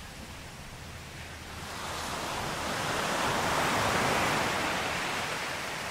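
Sea waves washing onto a beach shore: the surf swells up from about a second and a half in, peaks, and ebbs away, and the next wave starts to build near the end.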